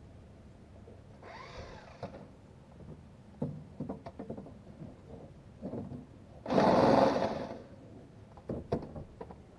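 Ratchet wrench working bolts loose under a car engine: scattered clicks and knocks of tool on metal, a short run of ratcheting just over a second in, and a louder, faster run about six and a half seconds in.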